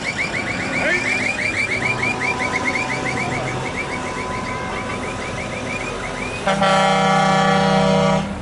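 Passing show trucks: an electronic warble sounds as a rapid run of rising chirps, about five a second, fading out around six seconds in. Then a truck air horn gives one loud, deep blast, held for nearly two seconds near the end.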